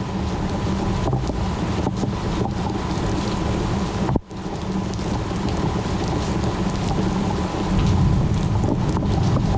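Thunderstorm rain: a dense, steady hiss of rain over a low rumble that swells near the end. There is a brief dropout about four seconds in.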